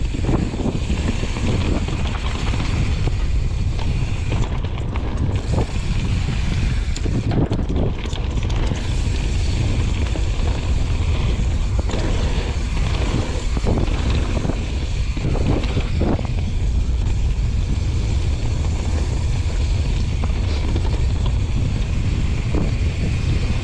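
Wind buffeting the microphone over the steady rumble of a mountain bike's tyres on a gravel trail, with frequent short rattles and knocks from the bike over bumps.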